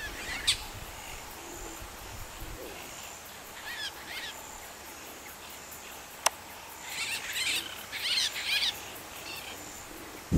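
Wild birds calling in short bursts of quick chirps: once near the start, again around four seconds in, and in a busier run near the end. Faint high insect trilling comes and goes underneath, and a single sharp click sounds about six seconds in.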